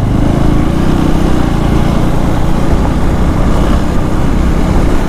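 Motorcycle engine running steadily while riding, with wind noise over the microphone.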